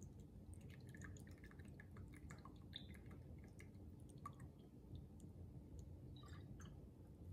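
Faint dripping and trickling of fish sauce poured slowly from a bottle into a measuring cup, a scatter of small drip ticks over a low room hum.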